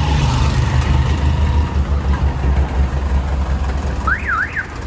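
Jeepney's diesel engine idling with a steady low drone, fading out near the end. Then an electronic alarm starts a fast up-and-down warble, about three sweeps a second.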